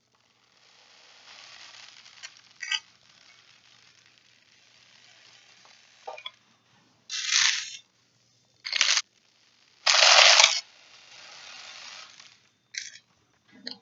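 Bird seed being poured into a plastic bottle: a faint trickling hiss, then three short rattling pours, the loudest about ten seconds in, with a few small clicks between.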